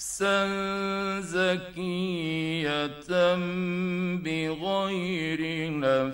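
A male Quran reciter chanting in the ornamented mujawwad tajweed style, from an old radio recording. He holds long notes with wavering melodic turns, broken by short breaths about three and four seconds in.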